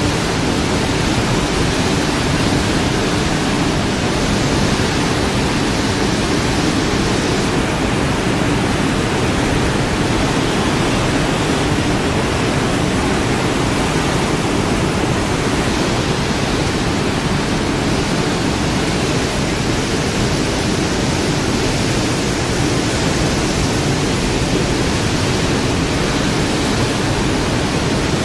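Steady rushing noise of an aircraft carrier's churning wake, with wind on the microphone.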